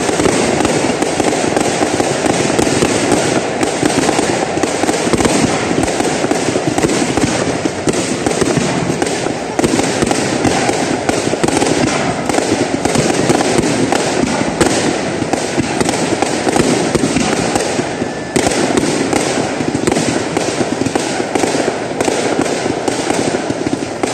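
Fireworks display: aerial shells bursting in quick succession, a loud, dense, continuous run of bangs and crackles, easing briefly about eighteen seconds in.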